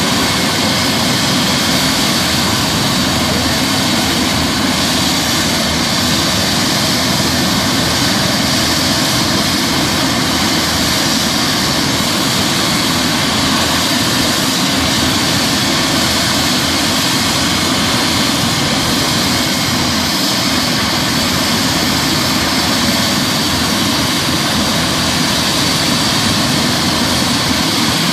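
Twin-turbine Eurocopter EC135 air-ambulance helicopter running steadily on the ground, its turbines at a constant whine with the rotor turning, with no change in pitch or level.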